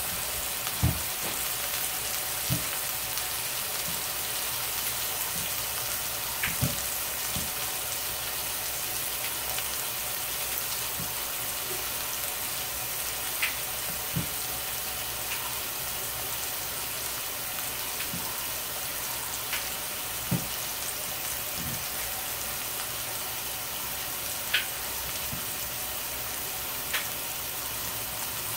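Pork chop searing in a hot cast-iron skillet: a steady frying sizzle with scattered sharp pops of spattering fat.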